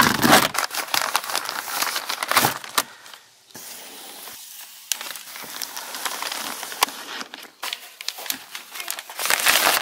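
Clear plastic wrapping crinkling and crackling as it is cut with scissors and pulled off a large cardboard box, with a quieter spell in the middle.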